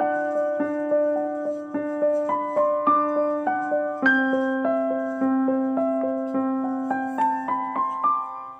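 Background piano music: a slow melody of single notes over held low notes, the harmony shifting about four seconds in.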